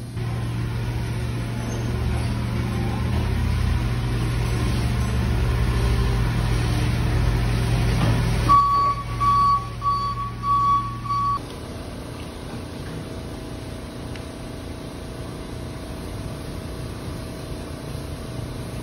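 Forklift running with a steady low hum while handling a pallet. Its reversing alarm beeps several times in a row about halfway through. The machine sound cuts off abruptly soon after, leaving a quieter steady background.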